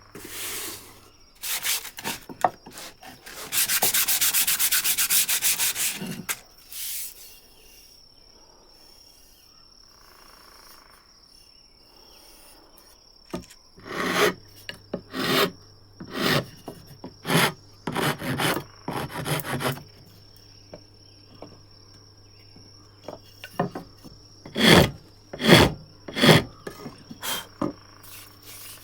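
Hand tools shaping wood: rubbing and scraping strokes on the wood. About four seconds in there is a dense, fast run of rasping that lasts about two seconds, and later come series of separate strokes, roughly two a second.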